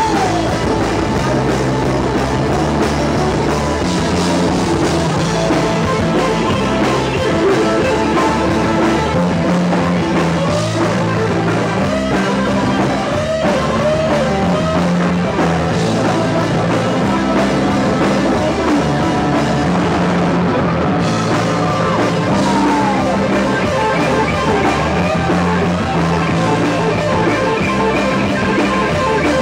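Live blues-rock trio playing an instrumental passage: electric guitar playing lead lines with bent notes over electric bass and a Ludwig drum kit.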